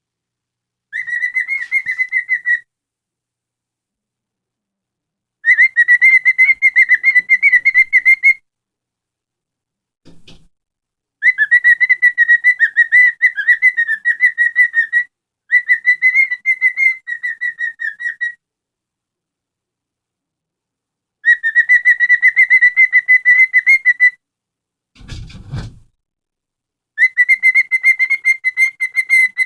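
Cockatiel calling in six bursts of quick, repeated chirps at one steady pitch, each burst one to three seconds long with pauses between. A short low bump or rustle about 25 seconds in.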